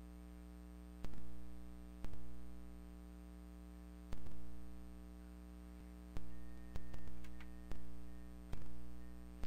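Computer mouse buttons clicking: single clicks a second or two apart, with a quick double click a little past the middle. Under them runs a steady electrical hum from the microphone.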